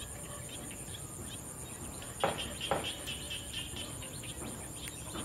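Crickets chirping steadily in a high, pulsing drone. About two seconds in, two short crunches half a second apart as a knife cuts through basil stems, with fainter ones near the end.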